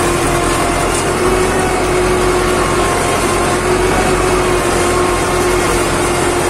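Fiat 640 tractor's four-cylinder diesel engine running steadily under load while pulling a mounted plough through the soil.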